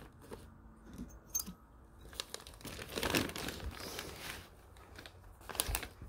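Plastic packaging bag crinkling as it is handled, loudest in a stretch from about two seconds in and again briefly near the end, with a few light clicks before it.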